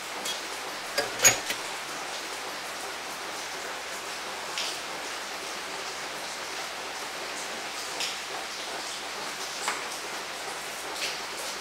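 A steady, even hiss of background noise with a few scattered light clicks, the sharpest about a second in.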